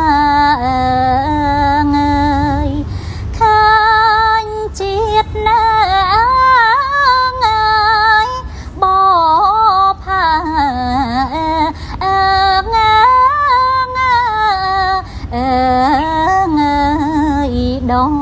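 A woman singing a slow, ornamented melody in long phrases, her held notes wavering and gliding in pitch, with short breaks between phrases.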